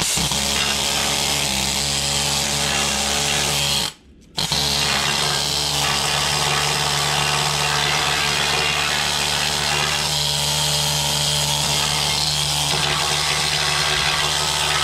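Harbor Freight pneumatic needle scaler hammering rust and scale off a steel truck frame rail: a loud, steady rattle that stops for about half a second around four seconds in, then runs on.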